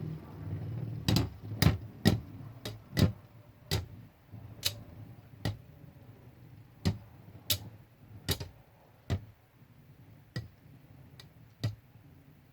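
Two Beyblade spinning tops battling in a stadium: sharp clacks as they collide, over a low whir of spinning. The clacks come further apart as the tops slow down.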